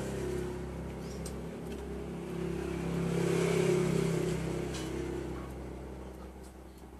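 A motor vehicle engine running, its steady hum swelling to a peak about three and a half seconds in and then fading away. A couple of faint clicks sound over it.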